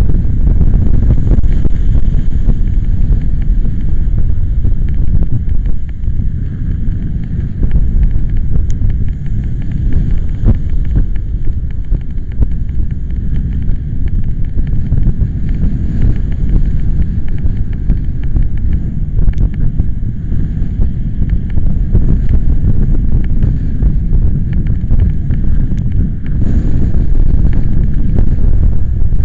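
Strong storm wind buffeting the microphone: a loud, low rumble that swells and eases with the gusts.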